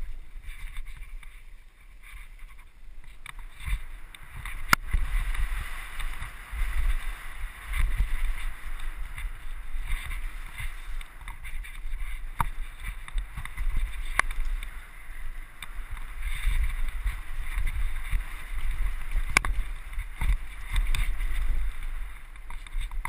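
Mountain bike riding fast down a forest trail, heard from a handlebar-mounted camera: wind rushing over the microphone and tyres running over the dirt and gravel, with the bike rattling and a few sharp knocks as it hits bumps and roots.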